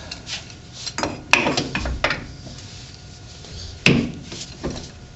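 Metal tools and brake-hub parts clinking and knocking during hands-on work on a car's rear drum brake: a few sharp clanks, the loudest about a second and a half in and again near four seconds, with handling and rubbing between.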